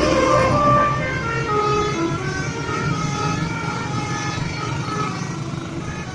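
Telolet basuri bus horn playing a quick melody of short stepped notes over the bus engine's low running. It grows gradually fainter.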